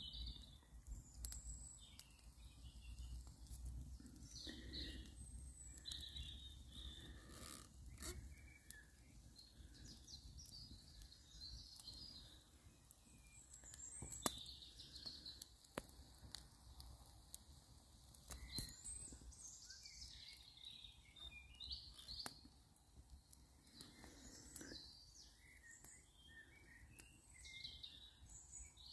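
Faint birdsong, with short chirps scattered through, and a few quiet sharp clicks now and then.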